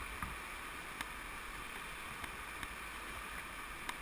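Steady rushing of a flooded creek's whitewater, with a few faint light knocks spread through it.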